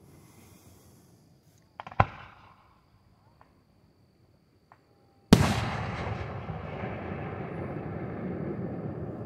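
Fireworks shells bursting: one sharp bang about two seconds in and a few faint pops, then a much louder bang about five seconds in whose long rumbling echo slowly fades.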